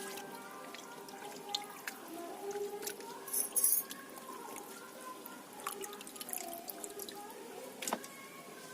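Water splashing and dripping, with scattered sharp clicks and a louder splash about three and a half seconds in.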